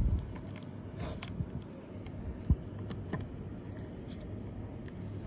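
Irregular plastic clicks and knocks as a condensate drain float switch is worked back onto the drain line fitting, the sharpest at the start and about two and a half seconds in, over a low steady hum.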